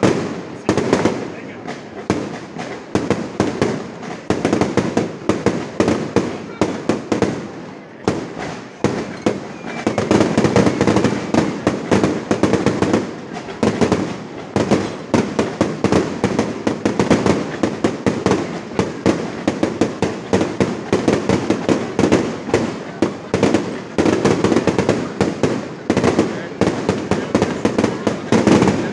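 Fireworks display going off in a rapid, unbroken volley of bangs and crackle, growing denser and louder about ten seconds in.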